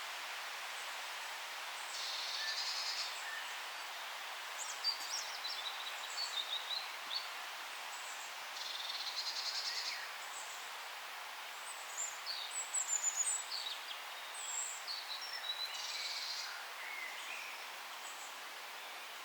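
Several forest birds singing over a steady background hiss: a short buzzy trill comes three times, about seven seconds apart, with quick high chirps and whistles scattered between.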